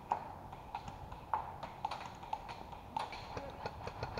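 Scattered airsoft gunfire in the woods: irregular sharp clicks and pops, about four or five a second and uneven in strength, the loudest right at the start.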